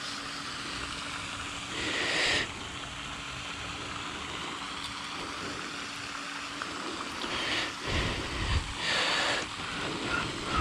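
A hooked largemouth bass splashing at the surface as it is played in on a fly line and lifted out of the water, two short splashes about two seconds in and near nine seconds, over a steady hiss of wind and water.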